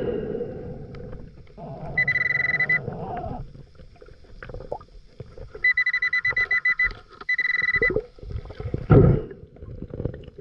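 Pulse Dive underwater metal detector giving three bursts of rapid high-pitched beeps, signalling a metal target in the sand. Underneath is a low underwater bubbling and sloshing that swells loudly about nine seconds in.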